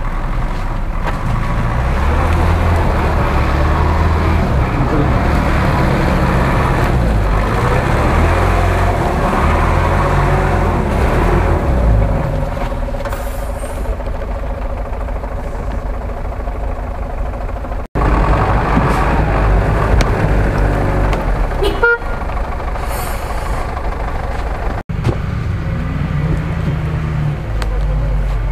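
Engine of a GAZ-66 off-road truck running under load, its revs rising and falling as it crawls over forest ground. The sound breaks off abruptly twice.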